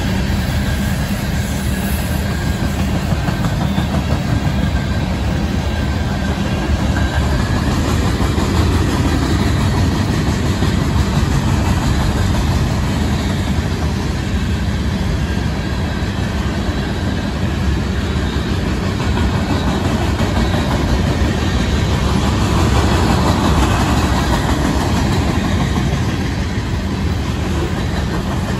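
Freight cars of a passing freight train rolling by at speed: a steady, unbroken rumble of steel wheels on the rails.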